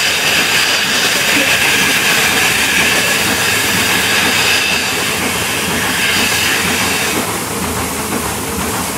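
Milking parlor machinery running: a steady, loud hiss and rumble from the milking machines' air and vacuum system. The high hiss eases off about seven seconds in.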